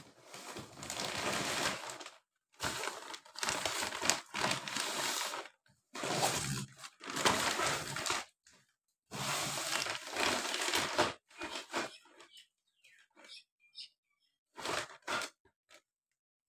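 Plastic packaging bags crinkling and rustling in four long bursts as they are handled and pulled out of a cardboard box, followed by scattered short crackles and rustles.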